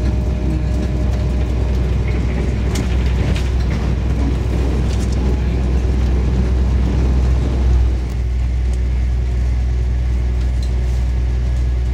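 A diesel passenger train heard from inside the carriage while running: a steady low rumble of engine and wheels on the track, with a few faint clicks.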